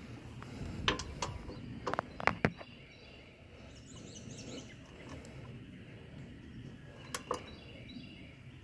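A few scattered metallic clicks and clinks from a socket wrench being fitted to the mower's 10 mm oil drain plug, in two groups about five seconds apart. A bird chirps faintly about four seconds in.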